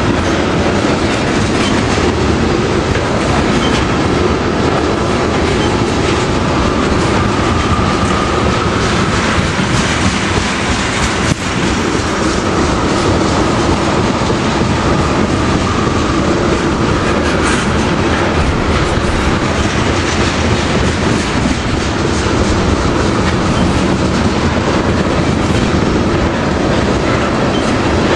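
Freight train of tank cars rolling past close by, its wheels clattering steadily over the rail joints. A faint high whine comes and goes over the clatter.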